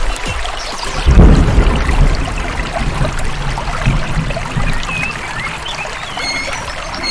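Waterfall rushing steadily, with birds chirping in the second half. A low thump about a second in is the loudest sound.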